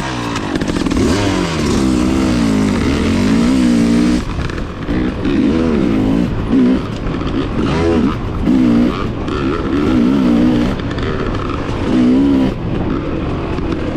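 Small dirt bike engine running after a hard-starting spell, revved up and down again and again in quick blips.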